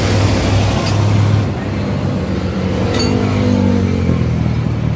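Motor-vehicle engine noise over a steady low hum, with an engine's pitch gliding up and back down about two to four seconds in, as a vehicle passes.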